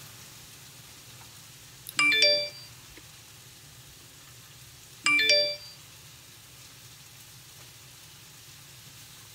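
An electronic chime sounds twice, about three seconds apart: each time a short rising run of three tones, over a faint steady hum.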